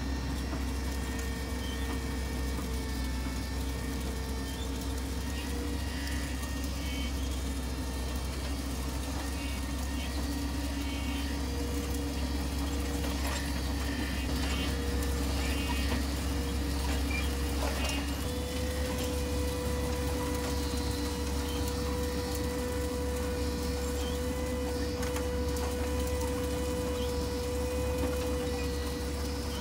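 Tractor pulling a Case IH 900 Cyclo corn planter through a field while planting: a steady machinery drone with a held whine on top that wavers slightly.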